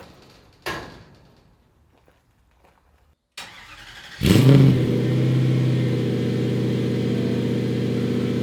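A Toyota 1UZ-FE V8 in a Mazda Miata cranks briefly, catches about four seconds in with a short rise in revs, then settles into a steady idle. A single thump comes under a second in.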